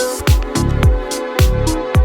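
Background music with an electronic dance beat: a deep kick drum thumping a little under twice a second, crisp hi-hat and snare hits, and a held synth note.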